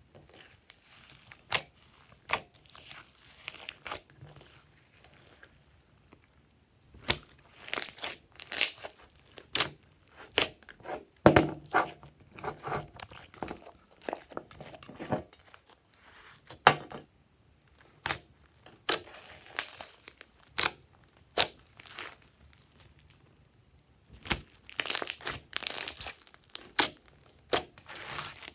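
Hands squeezing, folding and stretching glossy slime mixed with foam beads: irregular sticky pops and crackles from trapped air and beads, with a couple of quieter pauses.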